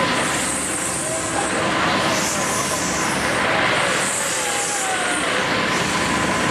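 Egg Dance ride (Technical Park Apollo 2000) in motion, giving a steady mechanical running noise. A high hiss swells and fades every second or two, and faint gliding tones come and go.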